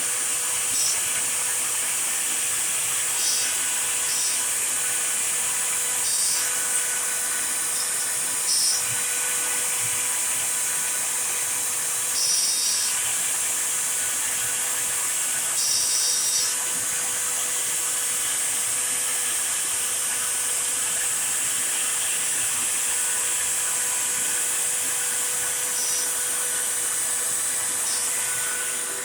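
CNC router spindle carving a wooden board, with a shop vacuum running at the bit for dust collection: a steady whine and hiss, with short higher-pitched bursts every few seconds as the bit cuts.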